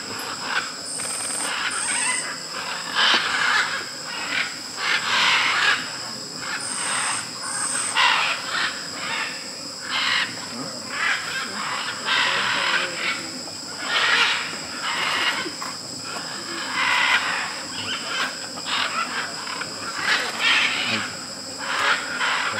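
A flock of macaws at a clay lick calling: harsh, raspy squawks overlapping and recurring every second or so. Underneath runs a steady high-pitched drone of insects.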